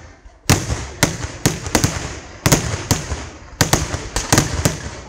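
Vedikkettu fireworks: aerial shells bursting one after another in a rapid run of sharp, loud bangs, often two or three a second, each trailing off, after a brief lull at the start.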